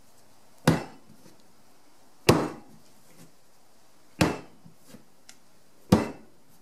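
A small block of moist clay slapped down onto a tabletop during wedging, with four dull thumps spaced about a second and a half to two seconds apart. This repeated slamming mixes the clay and drives out air pockets.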